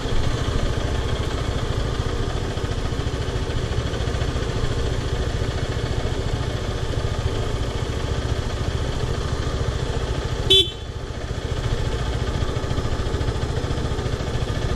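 Zontes X1 350's liquid-cooled single-cylinder engine idling steadily. A single short horn toot sounds about ten seconds in.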